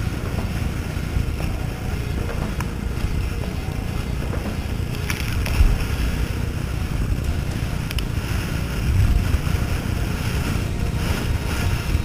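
Gale-force wind buffeting the microphone as a steady low rumble, over the wash and splash of rough sea around a sea kayak, with a couple of louder gusts or splashes about five and a half and nine seconds in.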